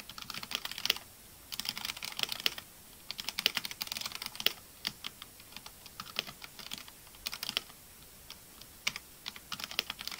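Typing on a Redragon Castor K631 Pro mechanical keyboard: rapid runs of key clicks and clacks broken by short pauses.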